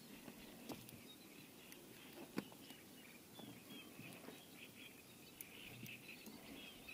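Quiet outdoor ambience of faint birds chirping, with a few soft sharp clicks, the loudest about two and a half seconds in, as a nylon fishing net is handled and cut with scissors.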